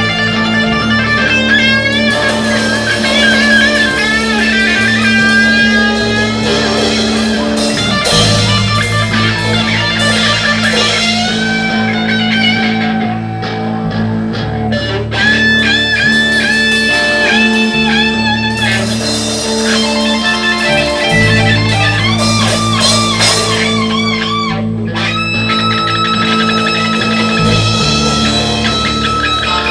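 Live rock band playing an instrumental passage: an electric guitar plays a solo with bent notes and vibrato over a steady bass line.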